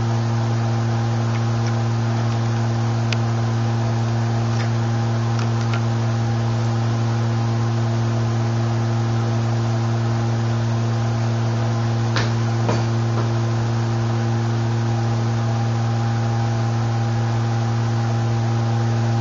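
A loudspeaker drives a Kundt's tube with a steady low sine tone at a resonant frequency of the tube, which sets up the standing wave that throws the powder into ridges. The tone holds unchanged with a few faint overtones, and a couple of faint ticks come about twelve seconds in.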